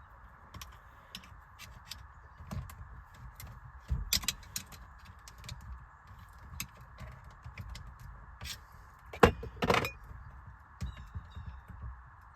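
Scattered small plastic clicks and knocks as a steering-wheel airbag module and its connector clips are handled and unclipped. There is a louder knock about four seconds in and two more near nine seconds.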